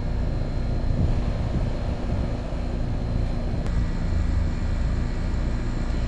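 Newly installed Trane heat pump outdoor unit running at start-up: a steady low hum from the compressor with the rush of the condenser fan. A light click comes about three and a half seconds in.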